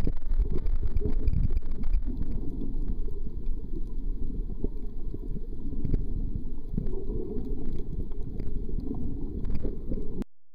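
Muffled underwater rumble of water moving against a submerged camera, with scattered faint clicks; it cuts off suddenly near the end.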